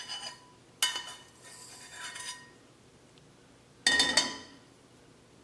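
A metal spoon clinking and scraping against a stainless steel pan as roasted cumin seeds are tipped out into a ceramic bowl. A louder cluster of ringing clinks comes about four seconds in.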